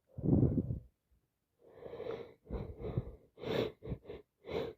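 Woman with a heavy cold breathing noisily: one longer breath at the start, then after a short pause a run of about eight short, ragged gasps, as if working up to a sneeze.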